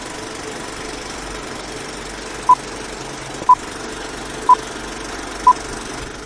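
Old film-leader countdown sound effect: a steady film projector clatter, with a short beep once a second, four beeps beginning about two and a half seconds in.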